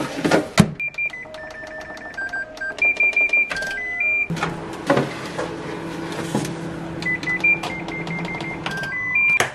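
A baking tray slides into a Hitachi microwave oven and the door clicks shut. A tinkly melody of high, beep-like notes follows. About four seconds in, the oven starts running with a steady low hum, and more of the high notes play over it near the end.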